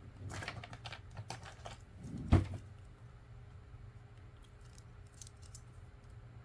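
Plastic LEGO bricks clicking and rattling as they are handled and pressed together, with one loud snap about two seconds in, then only faint small clicks.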